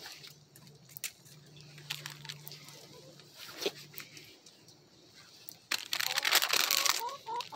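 Loud crinkling, crunching handling noise close to the microphone for about a second, starting just past the middle, over a quiet chicken run; short bird calls from the flock come in at the very end.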